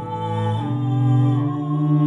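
A theremin and a bowed cello playing a slow piece together in long held notes.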